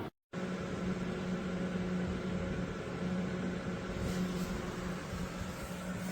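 Steady electric motor hum with a constant low tone over an even whir, broken by a brief cut to silence right at the start.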